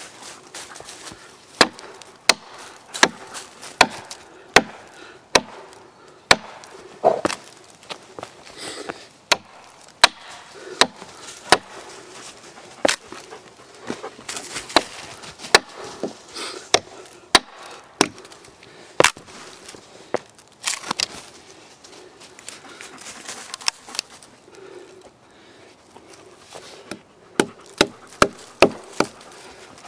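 Gransfors Bruks Mini Hatchet chopping into a hardwood trunk: a long series of sharp chops into wood, irregularly spaced at about one a second, coming in a quicker run near the end.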